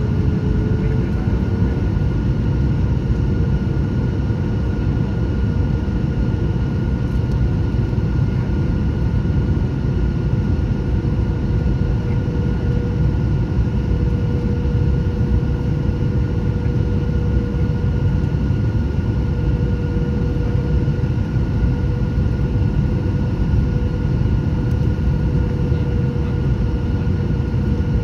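Boeing 737-800's CFM56-7B turbofan engines heard inside the cabin while climbing after takeoff: a steady deep roar with a steady whine over it, the whine rising slightly about a second in.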